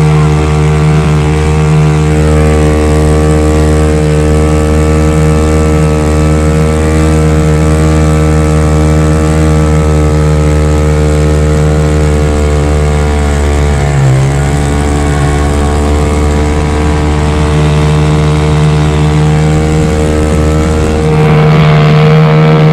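Mini speedboat's engine running hard at steady high revs, with a brief dip in revs and recovery about two-thirds of the way through, over the hiss of water spray.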